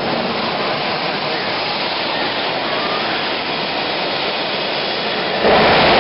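Jet engine of a jet-powered ATV buggy running with a steady rushing noise, then suddenly much louder about five and a half seconds in as flame shoots from its exhaust.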